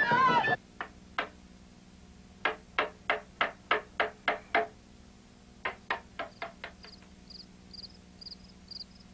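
A string of sharp knocks: two single knocks, then a run of about eight at roughly three a second, then a quicker run of about six that fades. Music breaks off just before the knocks begin, and crickets start chirping near the end.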